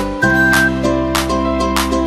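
Background music with a steady beat over sustained chords, the bass shifting to a new chord early on.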